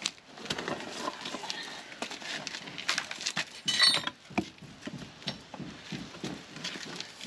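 Broken concrete and rubble being shifted and trodden on: irregular scrapes, knocks and crunches of stone, with one sharper ringing clink about halfway through.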